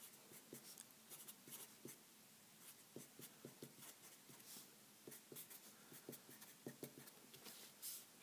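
Sharpie permanent marker writing on paper: faint, short strokes of the felt tip, a few each second.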